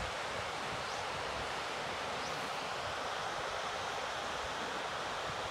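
Water spilling over a low river weir, a steady rushing hiss, with wind buffeting the microphone.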